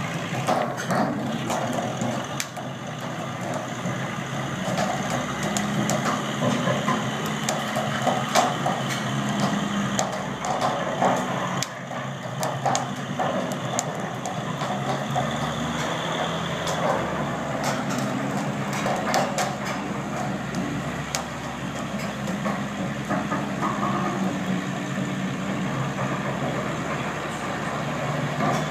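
Towmotor forklift's engine running steadily as it pushes a heavy ship cradle on wheeled dollies, with many scattered sharp clicks and creaks over it.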